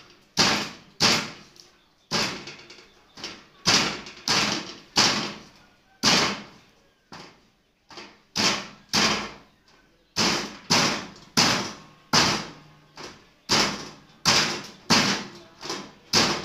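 Heavy kitchen knife chopping grilled rats, bones included, on a thick round wooden chopping block: sharp chops about two a second, with a short pause about halfway through.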